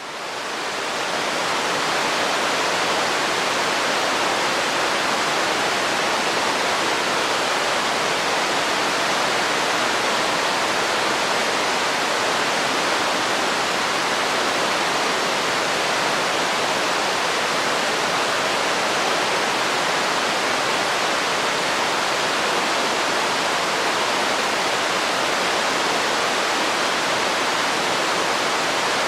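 Fountain water cascading and splashing into its basin, a steady rush that fades in over the first couple of seconds.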